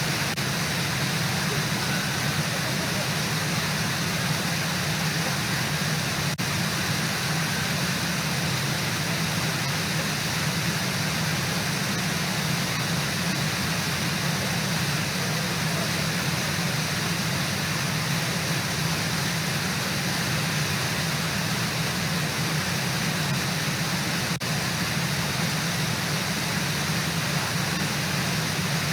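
Brooks Falls, a river waterfall, rushing steadily, with two faint clicks.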